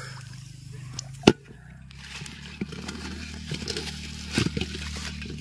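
A sharp click about a second in, then leaves rustling with small scattered clicks as hands turn over a potful of fresh green leaves in a metal pot.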